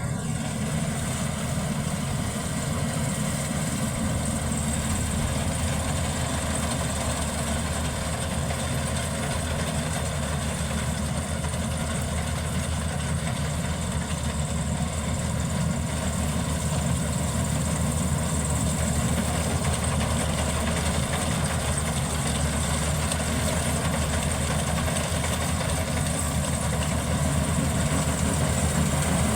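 Maxxi Bimo 102L combine harvester running steadily, a deep engine sound with a steady high hiss over it, growing a little louder near the end.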